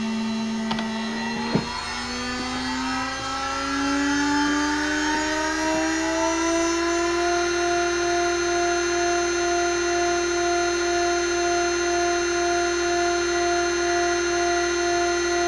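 Huanyang water-cooled CNC spindle driven by a VFD, spinning up to its top speed of 24,000 RPM. A click comes about a second and a half in, then the whine climbs steadily in pitch and settles into a steady high whine after about seven seconds.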